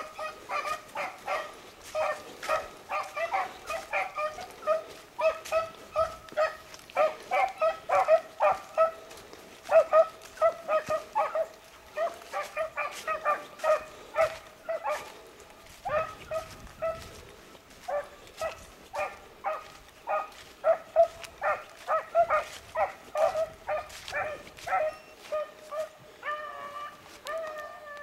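Beagle hounds baying on a rabbit's trail: a steady run of short chop barks, about two a second, with a longer drawn-out bawl near the end.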